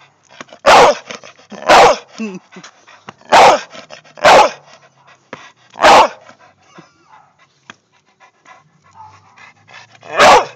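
A pit bull–type dog barking: six loud, sharp, girly-sounding barks, five in quick succession about a second apart, then a pause of about four seconds before one last bark near the end.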